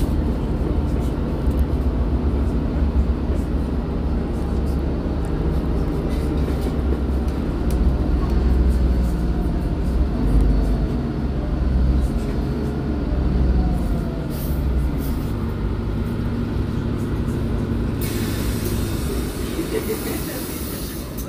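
MAN Lion's City 18C hybrid articulated bus under way, its engine giving a steady low hum whose pitch shifts about fifteen seconds in. A hiss sets in near the end.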